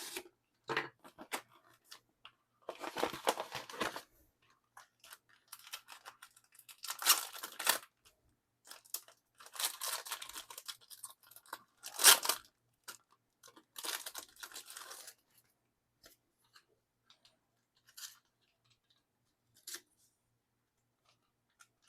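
Packaging being torn open and handled, in irregular rustling, tearing bursts separated by short pauses, the sharpest tear about twelve seconds in.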